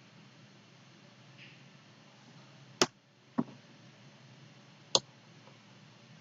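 Computer mouse clicking: three sharp clicks, the second a softer one about half a second after the first, the third about a second and a half later, over a faint steady hiss.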